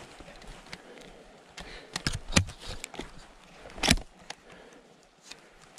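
Metallic clicks and clacks of a Ruger over-and-under shotgun being handled and its break action opened, with a few sharp clicks about two seconds in and the loudest snap near four seconds.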